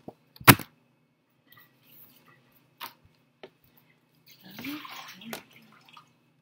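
Laminated picture cards being swapped on a whiteboard. About half a second in comes one sharp click of a magnet put onto the board, followed by a few lighter taps. Around five seconds in there is a short rustle of card sliding with a brief low voice sound.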